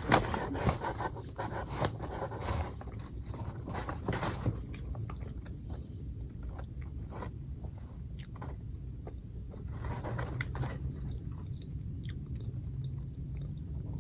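A person biting and chewing McDonald's food close to the microphone, with short crunchy clicks that come thick in the first few seconds and more sparsely after.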